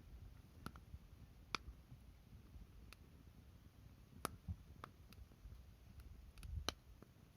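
Wood fire crackling: sparse, sharp snaps and pops at irregular intervals, about ten in all, over a faint low rumble.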